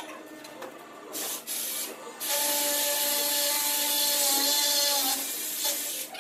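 Cordless drill running: two short bursts, then a steady run of about three seconds that stops near the end.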